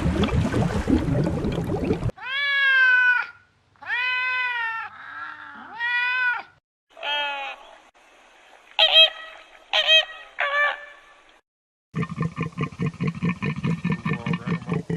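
A run of animal calls from a sound compilation, centred on a domestic cat meowing: a series of long, drawn-out meows rising and falling in pitch, then shorter, higher calls. It opens with a noisy rustling stretch, and about twelve seconds in a fast pulsing growl begins.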